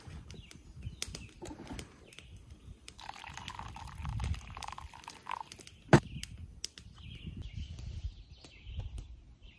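Liquid poured from a steel pot into a cloth coffee filter held over a wooden cup, trickling and dripping through, with a single sharp knock about six seconds in. Birds chirp near the end.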